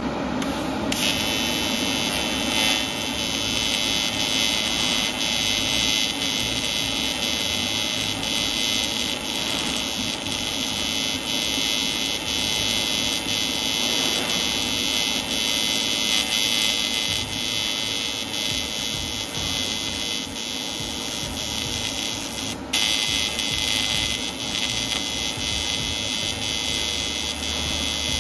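Pulsed square-wave AC TIG welding arc from a Taiwan Power TIG-200ADP inverter welder, set to 4T mode: a steady high-pitched electric buzz. It starts about a second in, cuts out for a moment about three quarters of the way through, and resumes.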